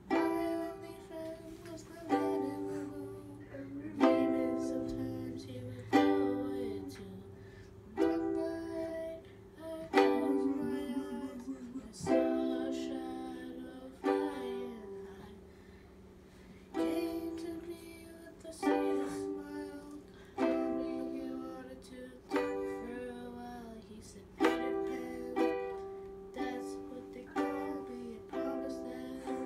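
Soprano-size ukulele strummed slowly, one chord about every one to two seconds, each left to ring out and fade before the next.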